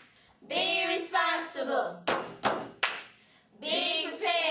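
A group of children chanting together in unison, then three quick sharp hand claps, then chanting again: a call-and-clap classroom routine in a steady rhythm.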